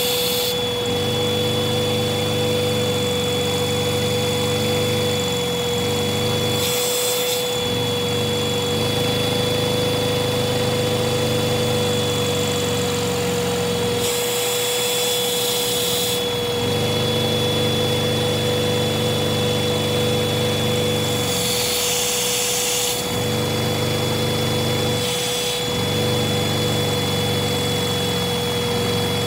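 Vacuum cleaner running steadily with a high whine, its suction driving a Lego inline two-cylinder vacuum engine that runs with a steady rhythmic chatter. A few times a brief rush of hissing air breaks in and the engine's rhythm drops out.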